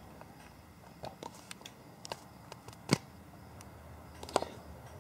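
Scattered small clicks and taps of hand handling, with a sharper click about three seconds in and a couple more just after four seconds.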